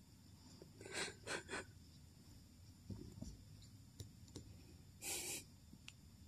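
Labrador Retriever sniffing: three quick sniffs about a second in, then a single longer breathy puff of air about five seconds in.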